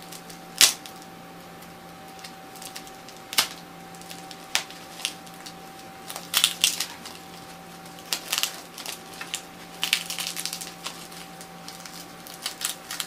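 Sticky tape and toilet paper crackling and rustling in short bursts as hands peel and unwrap the paper bundle around a potted plant, with one sharp crack about half a second in. A faint steady hum lies underneath.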